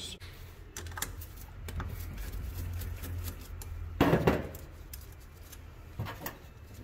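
Light metallic clicks and rattles of small terminal nuts and harness connectors being worked by hand on the rear terminal studs of an alternator, with a louder clatter about four seconds in.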